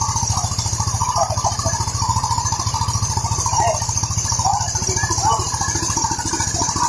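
Engine of a mobile rice mill running steadily with a fast, even pulse, under a steady high hiss from the milling machinery as rice is fed in.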